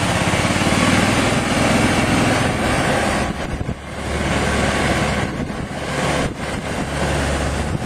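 Small petrol engine of a moving golf cart running steadily, with a loud rushing noise over it; it eases briefly about four seconds in.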